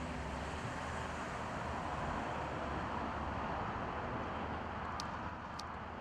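Steady outdoor background noise: an even hiss-like wash of the kind distant road traffic makes, with a low unsteady rumble under it. Two faint short clicks come about five seconds in, half a second apart.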